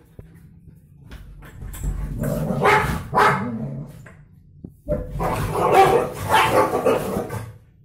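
A German shepherd and a stray dog fighting: two loud bouts of barking and snarling, the first from about one and a half seconds in, the second starting about five seconds in.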